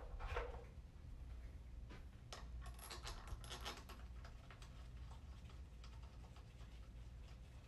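Faint, light metallic clicks and ticks of bolts being handled and set around the oil pump in an aluminium CVT transmission case, bunched about two to four seconds in, over a low steady hum.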